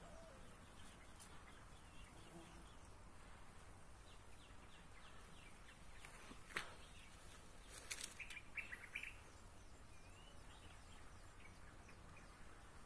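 Faint bird chirps, including a quick run of short falling notes, over a near-silent outdoor background. A sharp click comes about six and a half seconds in, and a few more follow about a second later.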